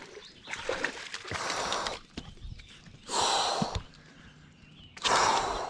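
A person breathing hard close to the microphone: three loud, noisy breaths, the last two the strongest.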